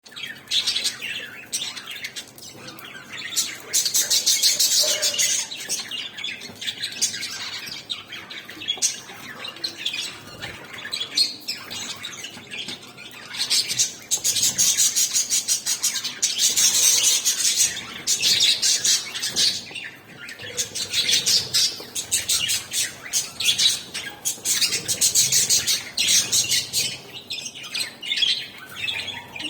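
Several pet budgerigars chattering and chirping busily while feeding, a dense stream of quick high chirps and warbles that swells into louder spells and eases off between them.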